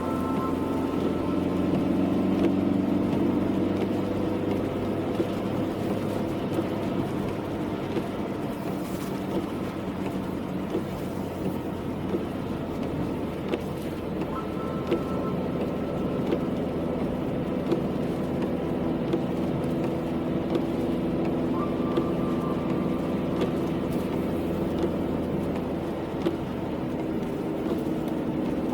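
A car being driven: steady engine note and road noise, the engine pitch drifting slowly up and down with speed.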